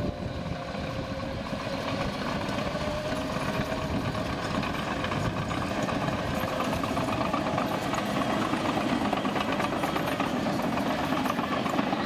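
John Deere crawler dozer's diesel engine running steadily under load, with track clatter, as the machine pushes a pile of dirt with its blade.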